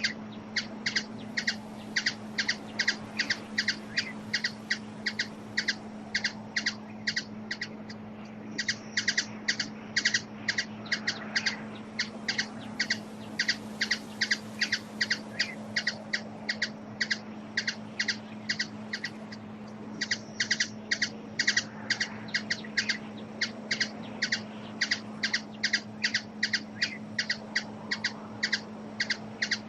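A small bird calling a long series of short, sharp chip notes, about two or three a second, with two brief breaks; a steady low hum runs underneath.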